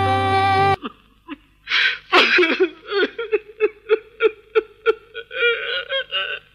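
A woman singing over sustained keyboard notes cuts off abruptly, and about a second later a man's voice starts in rapid, choppy bursts at a steady pitch, a broken laughing or sobbing sound from a film clip.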